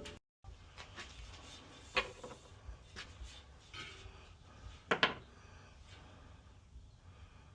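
A few sharp clicks and knocks with light rubbing from hand work on a bicycle wheel and its spoke, the loudest a quick double click about five seconds in.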